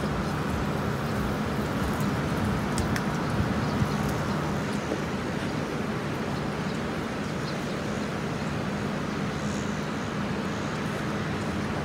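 Pressure washer running steadily: a constant motor hum with a hiss over it.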